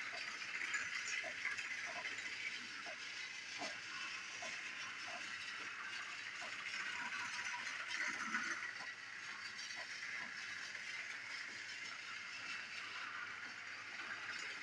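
Battery-powered toy train running on plastic track: a steady whirring motor with light clicks repeating a little faster than once a second as the wheels pass the track joints.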